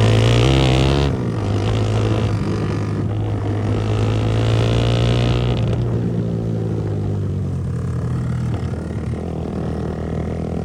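Motorcycle engine running under load, its revs rising and falling. It is loudest in the first second.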